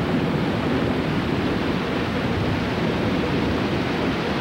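Heavy wind-driven rain of a hurricane: a steady, dense rush of noise.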